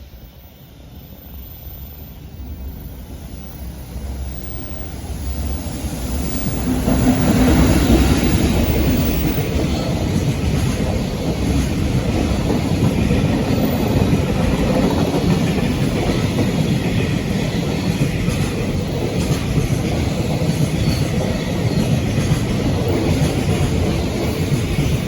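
JR Freight freight train on the Tokaido line approaching and passing close by: the rumble grows over the first several seconds, then the wagons roll past in a loud, steady rumble and rattle of wheels on the rails.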